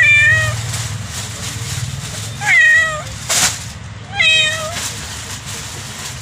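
Kitten meowing three times, each a short call about half a second long, roughly two seconds apart. A brief hiss of noise comes between the second and third meows.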